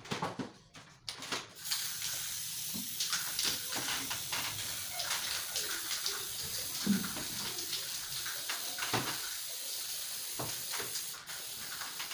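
Aerosol spray-paint can spraying in a steady hiss that starts about a second and a half in and breaks off briefly near the end, with a few light knocks.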